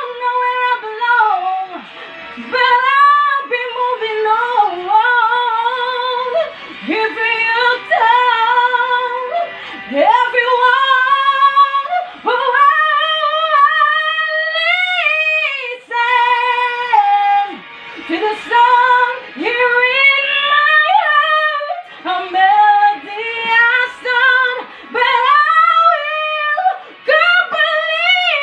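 A woman belting the closing ad-libs of a pop ballad: long runs that slide up and down in pitch, with a long high note about halfway through that climbs as it is held.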